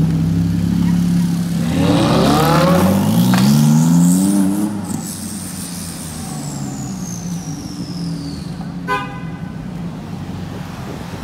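A sports car's engine idling, then revving hard as it pulls away, its pitch climbing in several rising sweeps before it fades into street traffic noise. A short car-horn toot about nine seconds in.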